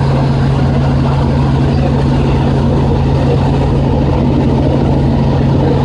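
Robinson R44 helicopter's piston engine and rotors running steadily in flight, heard from inside the cabin as a loud, even low hum.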